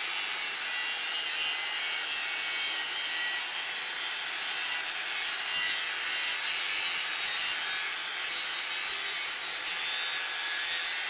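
Angle grinder grinding on a steel pipe bend, a steady hissing, rasping grind that holds unbroken.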